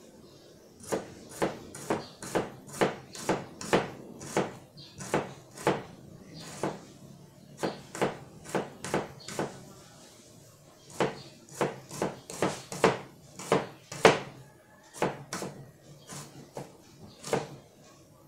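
Chef's knife slicing a red onion on a plastic cutting board: a run of sharp knocks of the blade through the onion onto the board, about two a second, with a short pause about ten seconds in.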